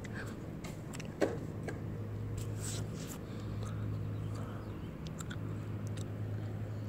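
A steady low mechanical hum, with light clicks and rustles of a phone being handled. A brief sharp sound about a second in is the loudest moment.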